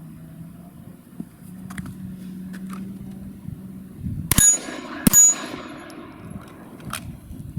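Two 9mm pistol shots from a Glock 34 fired less than a second apart, each hitting an 8-inch steel gong that rings out and fades. A shorter sharp click follows about two seconds later.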